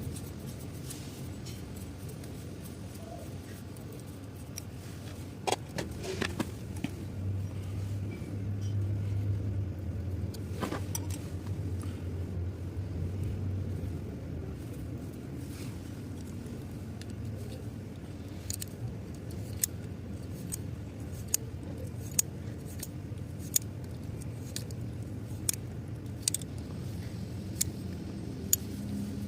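Scattered sharp metallic clicks and clinks of hand tools and metal parts being handled, over a low steady hum. The clicks come more often in the second half.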